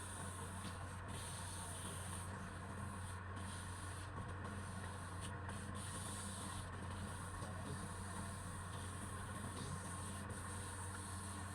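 Wood lathe running with a steady hum while something rubs against the spinning workpiece. A continuous high hiss cuts out for a moment several times.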